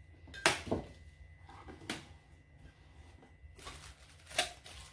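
A few sharp knocks and clicks of things being handled and set down. The loudest comes about half a second in, another near two seconds, and a last one near the end.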